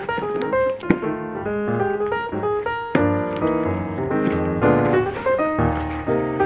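Instrumental background music played on keyboard, a melody over held chords and a bass line.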